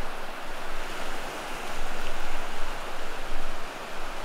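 Small surf waves breaking and washing up a flat sand beach: a steady hiss of water that swells and ebbs.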